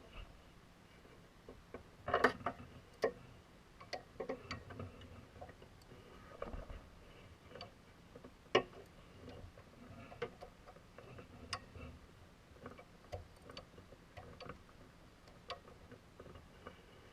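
Scattered, irregular light clicks and knocks of hand tools and metal parts being handled during car repair work, with two louder knocks: one about two seconds in and one about eight and a half seconds in.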